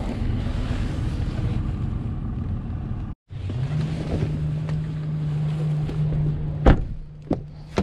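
Wind rumbling on the microphone for about three seconds, then, after an abrupt cut, a steady low hum beside an open pickup truck door, broken by a sharp knock about two-thirds of the way through and a lighter one just after.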